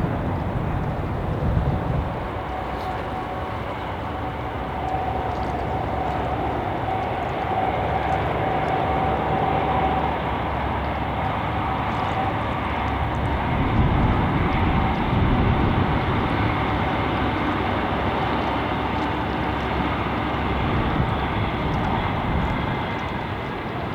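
Diesel train running past trackside with a steady rumble and rushing noise, and a faint steady whine for a few seconds in the middle.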